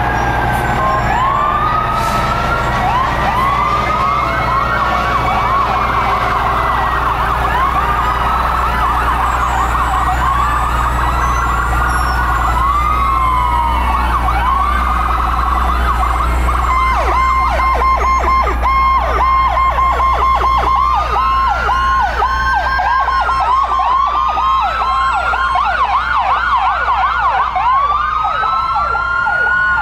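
Several fire truck sirens sounding at once: overlapping rising-and-falling wails, with faster yelping sweeps joining in from about halfway through, over a low rumble of truck engines.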